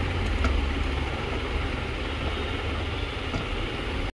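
A steady low hum with background hiss, and a faint click about half a second in.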